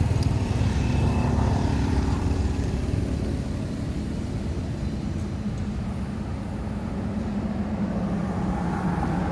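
Steady low rumble of a motor vehicle's engine.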